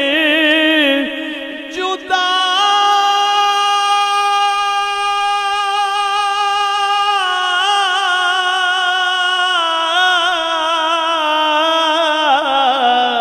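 Solo male naat reciter singing a long drawn-out wordless note: after a short breath about two seconds in, he holds one note for several seconds, then lets it step down in pitch twice with a slight waver.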